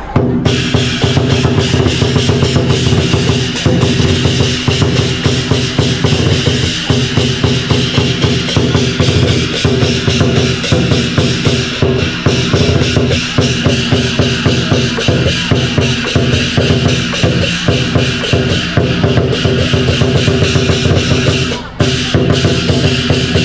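Lion dance percussion: large Chinese barrel drums beaten in a fast, steady rhythm, with a short break near the end.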